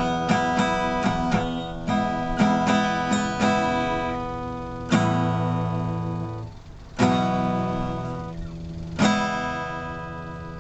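Acoustic guitar strummed in a steady rhythm, then three single chords struck about two seconds apart, each left to ring out and fade.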